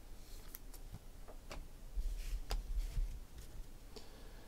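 Scattered light clicks and taps of hands handling trading cards and a cardboard card box on a tabletop, about half a dozen in all, with a soft low bump about two seconds in.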